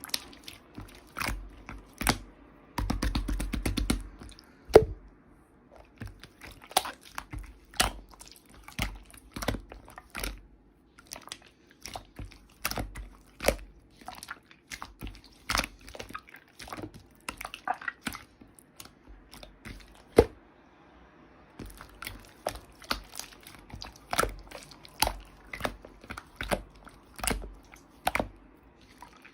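Irregular sharp clicks and crunches close to the microphone, coming several a second at times, with a denser crackling stretch about three seconds in.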